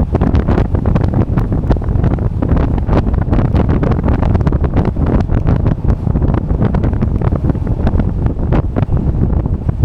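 Wind buffeting the microphone while riding an electric bike at speed: a loud, low, gusty rumble with constant uneven flutter.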